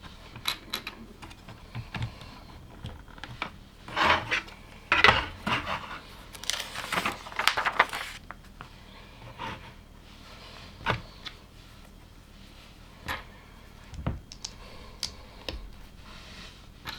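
Small plastic LEGO pieces clicking and clattering as they are handled and pressed together, with a denser stretch of rattling and rummaging through loose parts about four to eight seconds in.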